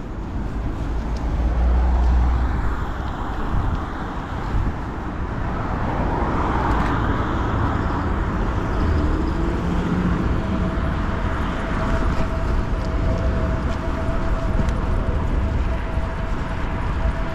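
Road traffic noise with low wind rumble on a GoPro's microphone while cycling through city streets. A steady thin hum sets in about nine seconds in and holds.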